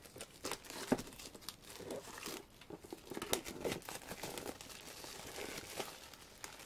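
Plastic shrink wrap being torn open and pulled off a sealed album box, crinkling with many sharp crackles.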